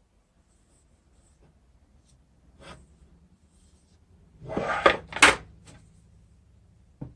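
Handling noises at a workbench while a car window regulator is greased: a light knock, then a brief loud clatter and scrape about four and a half seconds in, and a small click near the end.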